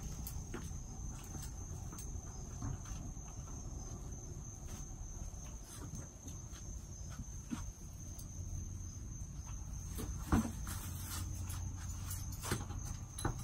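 Insects trilling steadily at a high pitch over a low rumble, with scattered faint clicks and one sharper knock about ten seconds in.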